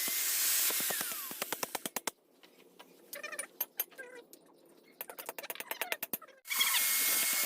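Small electric power tool running with a thin whine, switched off about a second in: the whine falls in pitch and a run of fast clicks fades as it coasts to a stop. After a few quiet seconds with a few light clicks, it starts up again near the end.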